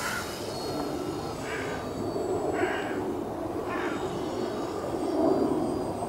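Electric motor and propeller of a Hobby King Slow Stick model airplane flying overhead, a steady drone that swells a little about five seconds in. Three short, higher chirp-like sounds come about a second apart.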